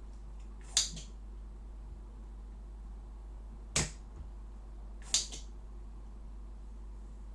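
Manual spring-loaded desoldering pump (solder sucker) snapping sharply three times as it is worked to suck molten solder from capacitor joints, over a steady low hum.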